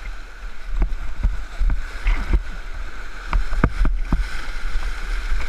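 River rapids rushing and splashing right around a camera at the water's surface, with a steady low rumble of water buffeting the microphone and scattered short splashes.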